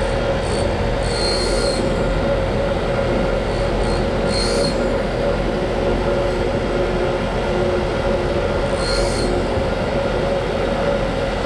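Grinder running steadily while a steel drill bit is sharpened on its wheel, with three short high grinding bursts as the bit is pressed to the wheel and rolled to cut a new leading edge.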